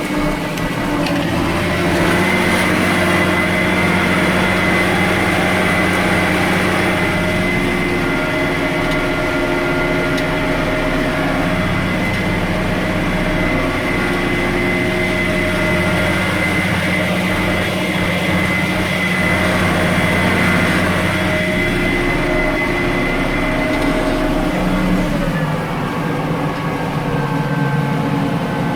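Tractor engine running steadily under load while pulling a plough; its note shifts a little near the end.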